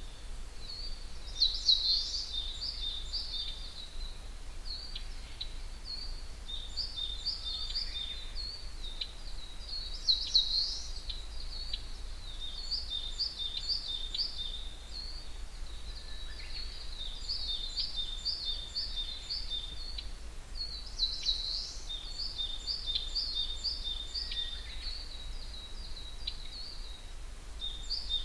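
Wild songbirds singing in a dawn forest chorus: a continuous run of rapid, high chirping notes repeated phrase after phrase, with louder flourishes about two, ten and twenty-one seconds in, over a faint low rumble.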